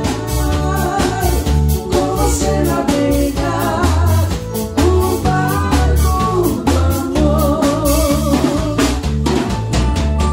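Live band playing a dance tune: a steady pulse of electric bass and drum kit under keyboard and electric guitar, with a sung vocal line on top.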